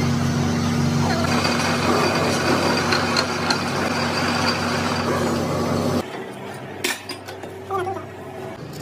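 Vehicle engine running steadily, then cutting off suddenly about six seconds in, leaving a few light clicks and clinks.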